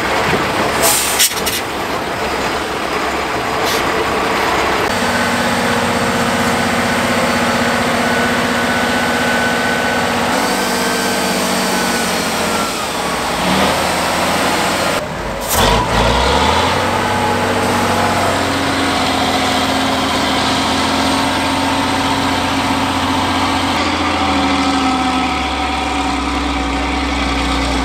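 Heavy off-road trial trucks' diesel engines running under load, their pitch rising and falling as they work through mud and up a steep bank. There is a sharp break about 15 seconds in, and the engine pitch climbs near the end, with the truck pouring black smoke on the climb.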